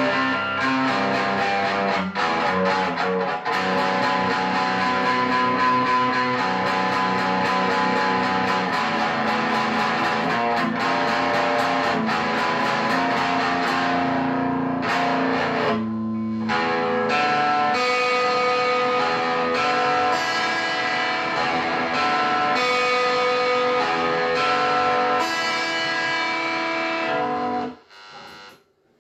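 Guitar music playing, with a short break about halfway through, then cutting off near the end.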